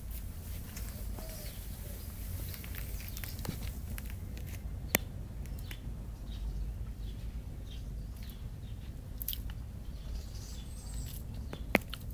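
Italian sparrows chirping in the background, short scattered calls over a steady low rumble, with two sharp clicks, one about five seconds in and one near the end.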